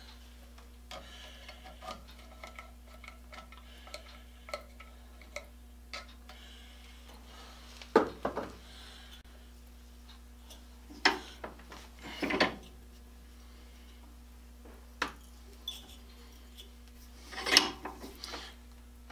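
A hand die in a die stock cutting a 1/4-20 thread on a rod held in a bench vise: light metal ticks and scraping as the handles are turned, with several louder metal clanks and clinks scattered through.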